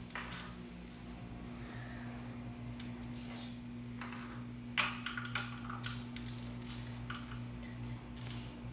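Scattered small clicks and rattles of Lego plastic parts and a hub cable being handled, the sharpest about five seconds in, over a steady low hum.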